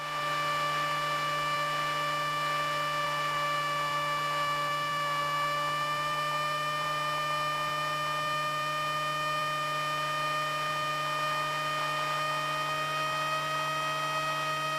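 Steady electrical hum and whine on a light aircraft's intercom audio feed, a stack of tones that creeps slightly up in pitch from about five seconds in.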